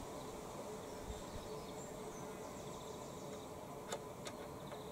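Two light plastic clicks about four seconds in, as the lawnmower's oil dipstick is drawn out of its filler tube, over a faint steady hum.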